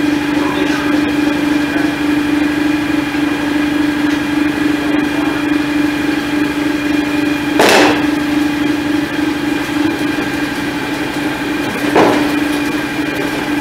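John Deere X738 garden tractor's engine idling with a steady hum. Two sharp metal clunks come about eight seconds in and again near the end.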